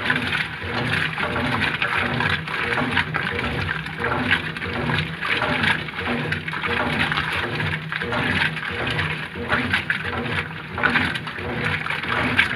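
Brastemp Ative 11 kg (BWG11AB) washing machine agitating: the drive motor hums in repeated strokes while water and clothes churn and slosh in the tub.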